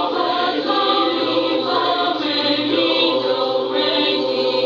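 Junior high school choir singing an unaccompanied a cappella piece together, voices sustained and blended in chords.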